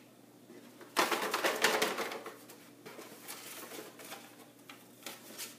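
Paper slips and the cardboard of an opened 12-pack box rustling and crackling as a hand rummages inside to draw one out. It starts suddenly about a second in, loudest at first, then goes on as lighter rustling.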